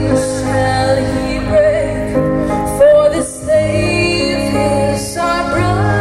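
A female vocalist singing live over a backing track played through a stage PA system, with long held notes.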